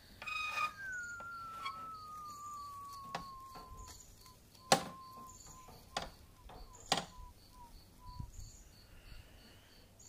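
Wood burning on a braai fire, whistling with a thin tone that slides slowly down and then holds, fluttering and breaking up, for several seconds, with two sharp cracks about two seconds apart. Crickets chirp in a steady rhythm behind it.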